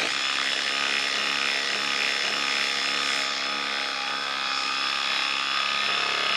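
Ryobi impact driver hammering steadily as it drives a 4-inch lag screw into a wooden log round with no pilot hole, turning it through a socket adapter.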